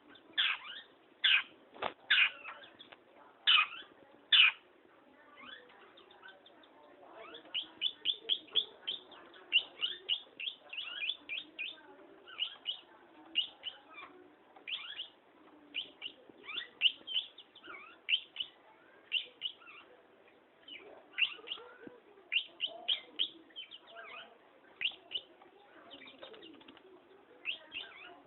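Long-tailed shrike (pentet) calling busily: short sharp notes, singly and in rapid runs, repeated with brief pauses throughout.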